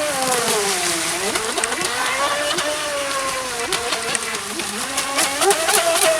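Traxxas electric RC speedboat running on the water, its motor whine rising and falling in pitch as the throttle is worked, with many short sharp splashes as the hull skips over the chop.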